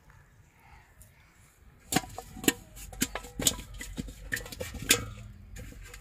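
Rapid, irregular knocks and clanks on an aluminium pot, starting about two seconds in and lasting about three seconds, as a freshly caught fish thrashes inside it.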